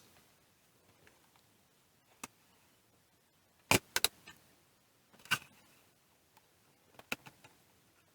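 Short, sharp plastic clicks and snaps as the front bezel of a digital microscope's casing is pried loose: one, then a quick group of three, one more, and a few near the end.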